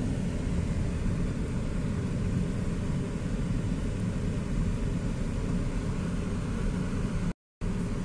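Steady low rumble of road and engine noise heard inside a moving car's cabin. It cuts out completely for a moment near the end.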